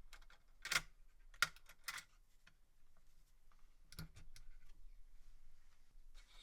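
Small sharp clicks and taps of computer hardware being handled during a CPU replacement in a Dell OptiPlex 3090 Micro: three close together about a second in, another near the four-second mark, and fainter ticks between.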